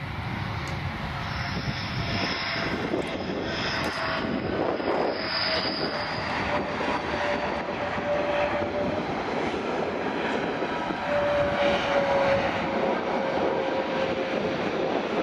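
Airbus A321neo's jet engines whining during its landing roll-out on the runway: a steady rush with a high, thin whine and a lower tone that slides slightly down as the airliner slows.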